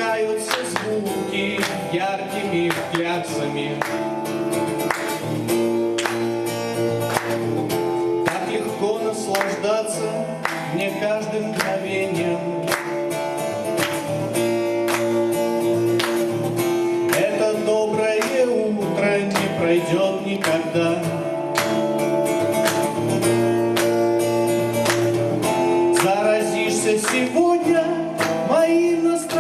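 A man singing a song to a strummed acoustic guitar.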